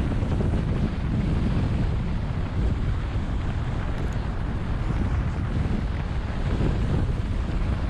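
Steady wind noise buffeting the camera microphone of a downhill skier travelling at about 35–40 mph, mixed with the skis running over the packed snow.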